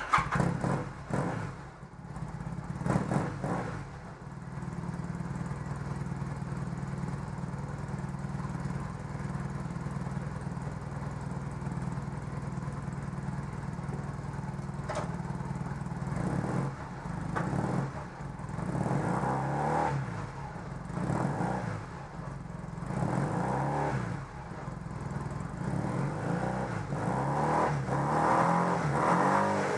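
1986 Honda Nighthawk 450 (CB450SC) parallel-twin engine running just after starting, idling steadily. From about halfway through it is revved in a series of short throttle blips, its pitch rising and falling.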